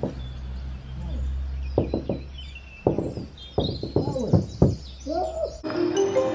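Knocking on a door, several irregular knocks over a steady low hum, with some high chirping sounds between them. Music starts abruptly near the end.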